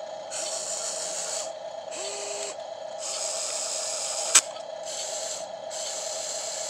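Radio-controlled excavator's small electric motors and gearboxes whirring in repeated short runs as the boom, bucket and swing move, over a steady hum. A single sharp click about four seconds in.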